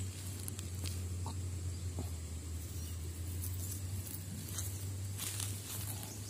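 A few scattered footsteps crunching on pebbles and gravel, over a steady low hum. The steps are sparse and slow, with a small cluster of them near the end.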